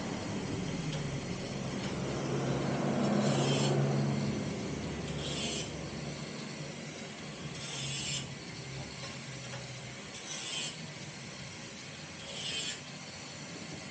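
A cat licking its fur at close range, short rasping bouts every two seconds or so. A vehicle engine passes, loudest about three to four seconds in.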